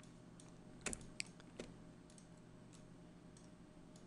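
Light clicks from a computer being worked, over quiet room tone with a faint steady hum: three sharper clicks between about one and one and a half seconds in, then a few fainter ticks.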